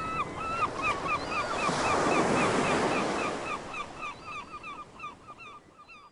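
Ocean surf: a wave swells, washes in and fades away, with a bird calling over it in short repeated notes, several a second, that fade out near the end.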